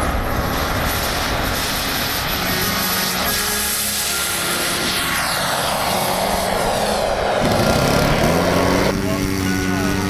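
Radio-controlled L-39 Albatros model jet taking off and climbing away: a loud, steady rushing engine noise with a whine that falls in pitch as it goes by. About nine seconds in, a different engine with a steadier note, rising slightly in pitch, takes over.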